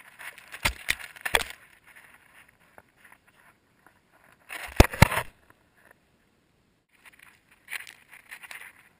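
Dogs' paws crunching and scuffing through snow right at a GoPro camera lying in the snow, with knocks as they bump it. It comes in three bursts: one at the start, a louder one near the middle, and a shorter one near the end.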